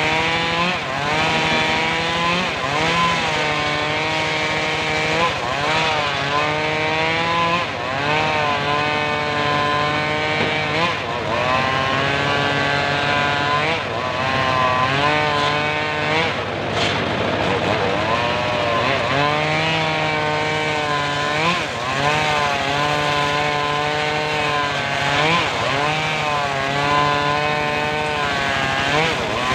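Homemade engine-driven circular sawmill running through mahogany. Its pitch keeps dipping and recovering every second or two as the blade loads up in the cut.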